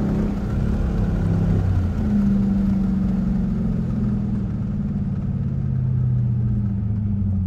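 Straight-piped 5.7-litre HEMI V8 exhaust of a 2021 Dodge Durango R/T, heard from inside the cabin while cruising. It holds a steady, deep drone whose pitch eases down slightly through the middle.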